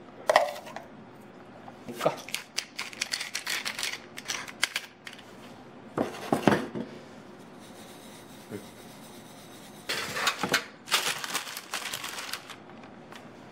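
Dry seasonings being added to a ceramic bowl by hand: a quick pour, then a run of small clicks and rattles as pepper goes in. About ten seconds in, parchment paper crinkles and rustles as it is pressed into a metal baking tray.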